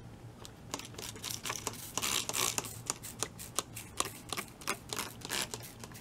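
Hand spray bottle misting wet water onto model railroad scenery: rapid repeated trigger squeezes, about three or four a second, each a short spritz, with a few longer hisses around two seconds and again near five seconds in.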